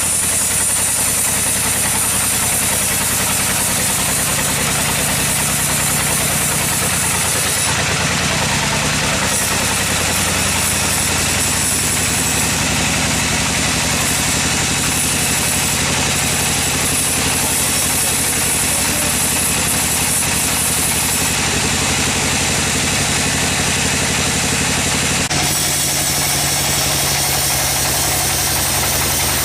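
Sawmill machinery running: a steady engine drone under a constant hiss. The sound shifts abruptly about eight seconds in and again near the end.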